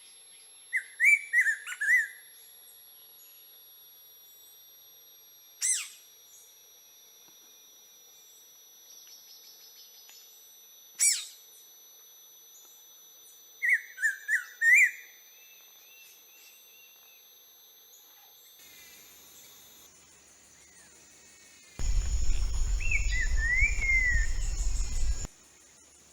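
Green-winged saltator (trinca-ferro) singing short whistled phrases three times, with two sharp single notes between them, over a steady high insect drone. Near the end a loud low rumble covers everything for about three seconds.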